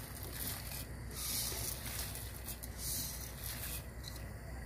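A pot of soup at the boil on the stove, hissing and bubbling softly, with a light patter as dry soup pasta is poured in.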